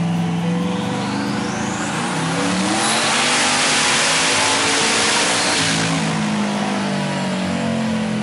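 Hellion twin-turbo LS V8 in a 2012 Camaro on a chassis dyno, revving up with a high turbo whine that climbs steeply. For about three seconds at the top the run is covered by a loud rushing hiss, then the revs drop back and the engine settles.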